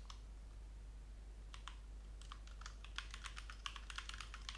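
Computer keyboard typing: a few scattered keystrokes, then a quicker run of keystrokes from about halfway in.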